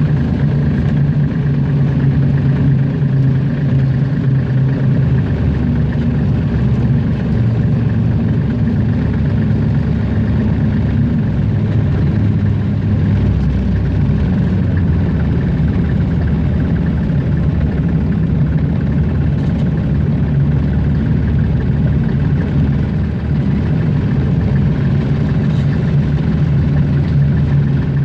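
Hunslet narrow-gauge diesel locomotive's engine running steadily as it hauls along the track, heard from the cab.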